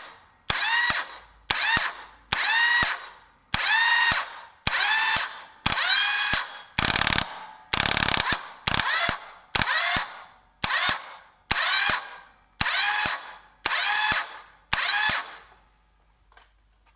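1998 Yamaha Virago XV1100 electric starter pressed in short bursts, about fifteen times roughly a second apart. Each burst is a click and then a whine that rises in pitch and dies away. Two bursts near the middle are a rough grinding rasp instead. The engine never fires: this is a no-start, despite a good bendix, a new idler gear and a fully charged battery.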